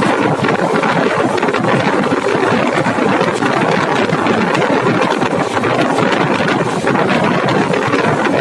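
Running noise of the 11302 Udyan Express passenger train on the move: a steady, loud rumble and rattle of wheels on rail and the coach.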